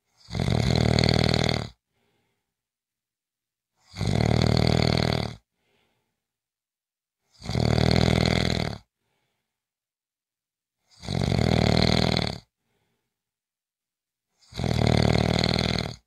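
A person snoring in a steady rhythm: five loud snores, each about a second and a half long, coming about every three and a half seconds, with faint breathing between them.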